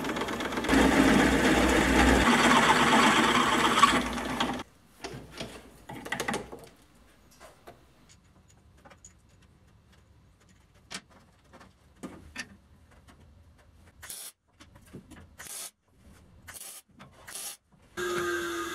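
Loud, continuous workshop tool noise for about four and a half seconds, then it stops and leaves a quiet stretch with scattered clicks and light taps.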